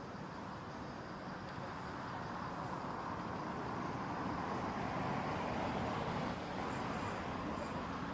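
Rushing noise of road traffic, a passing vehicle growing louder over the first few seconds and then holding steady.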